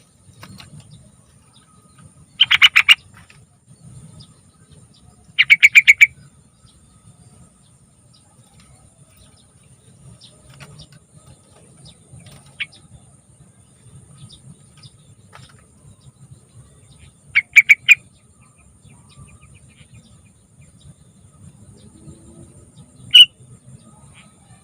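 Yellow-vented bulbul calling: three short bubbly phrases of quick repeated notes, the second the longest, then a single sharp note near the end.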